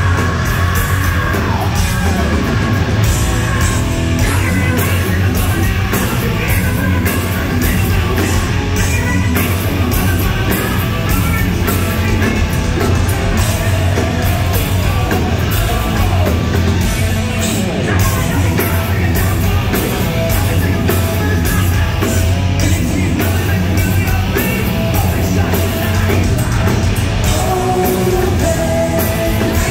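Live hard rock band playing loud and steady: electric guitars, bass and drums under a lead singer singing and yelling.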